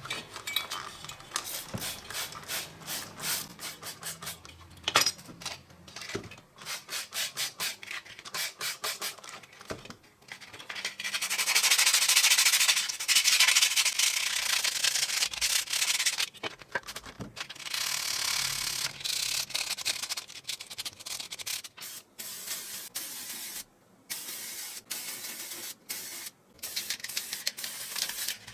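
Hand sanding: rapid back-and-forth rubbing strokes in bouts with short pauses between them, and a denser, louder stretch of hiss about eleven seconds in.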